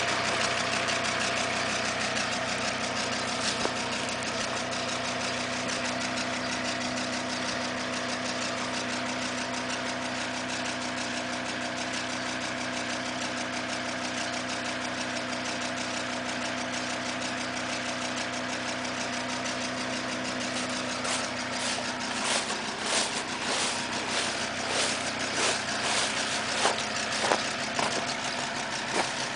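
Audi A6 2.5 TDI AEL five-cylinder diesel idling with a ticking that sounds like the valve train. The cause is a sheared key on the crankshaft timing-belt sprocket: the camshaft has slipped 6–8 degrees advanced, so the inlet valves touch the pistons as they open. In the last several seconds sharper clicks come irregularly, about two a second.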